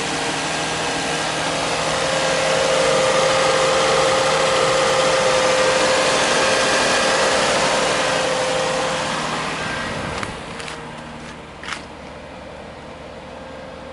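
2002 Lexus ES300's 3.0-litre V6 engine idling steadily, heard close up with a clear steady tone over its hum. It gets quieter about ten seconds in, and two sharp clicks come near the end.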